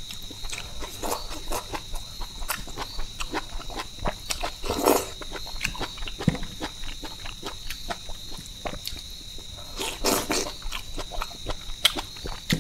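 Close-miked eating by hand: wet chewing, lip-smacking and mouth clicks coming several times a second, with two louder breathy bursts about five and ten seconds in.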